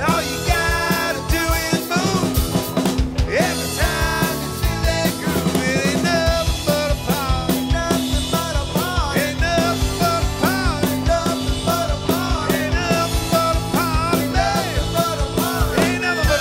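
Rock band playing live: drum kit keeping a steady beat under electric guitars and electric bass.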